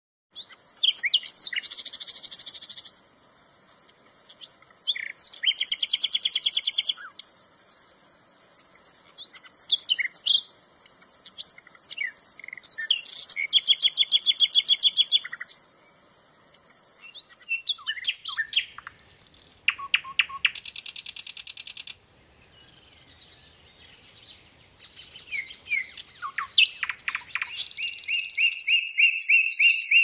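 Nightingale singing: loud phrases of rapid repeated notes and trills, broken by short pauses. A thin, steady high tone runs under the song and stops a little past halfway.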